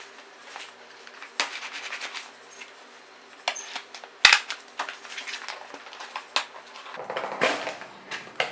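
A small product box and its packaging being handled and opened: rustling and crinkling with scattered clicks and taps. One sharp knock a little past four seconds in is the loudest sound.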